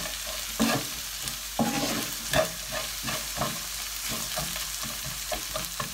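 Wooden spatula stirring and scraping noodles and vegetables around a non-stick wok, about two or three strokes a second, over the steady sizzle of the food frying.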